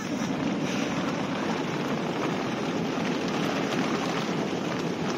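Heavy rain pouring down steadily, an even rushing noise with no break.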